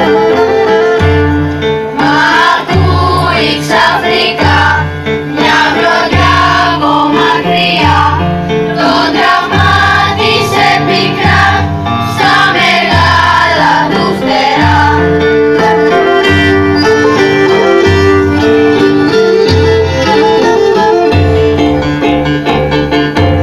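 Children's choir singing live over amplified music, with held instrumental notes and a low beat about every second and a quarter. The singing stands out most in the first two-thirds.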